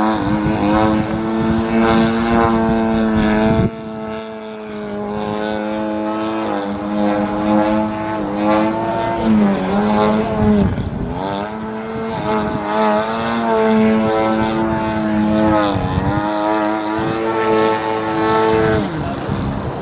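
Radio-control Extreme Flight Slick 580 3D aerobatic plane's motor and propeller drone overhead, with the throttle changing through the manoeuvres. The pitch holds steady, falls off abruptly about four seconds in, then dips and swells back several times.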